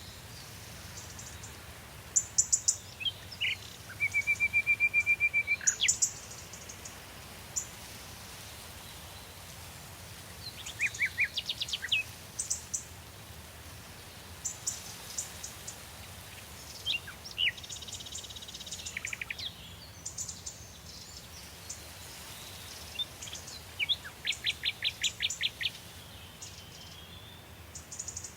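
Several songbirds singing in a forest, trading high chirping phrases. About four seconds in one bird holds a steady trill for a couple of seconds, and near the end a fast run of repeated notes stands out, all over a faint steady hiss.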